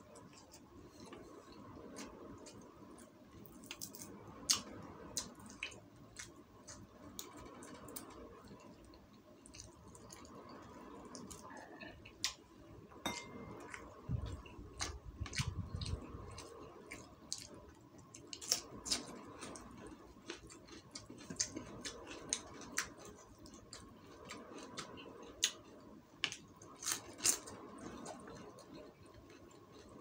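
Close-up eating sounds of a person chewing fried quail and rice by hand: wet mouth smacks and many short sharp clicks at an irregular pace, with a low bump about halfway through.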